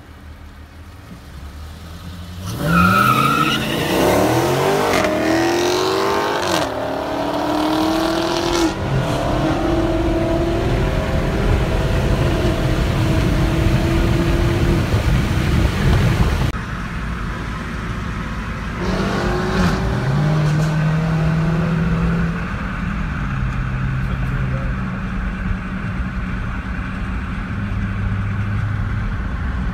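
Muscle-car V8 engines accelerating hard, the pitch climbing and dropping back through three or four quick upshifts, then holding a steady drone at speed. They ease off about sixteen seconds in, then pull hard again through a couple more shifts before settling into a steady cruise.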